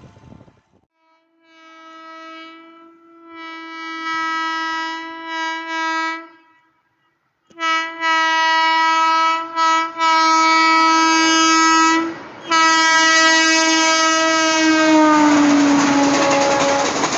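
Indian Railways electric locomotive's air horn sounding in long blasts as the train approaches, with short breaks between blasts. About fifteen seconds in, the horn's pitch slides down as the locomotive passes, and the rushing clatter of the coaches' wheels over the rail joints takes over.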